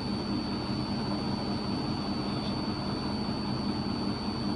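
Steady low hum with even room noise and a faint steady high-pitched whine.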